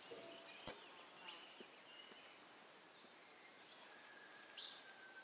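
Near silence: faint outdoor background with a few short, faint high chirps and a single soft click about two-thirds of a second in.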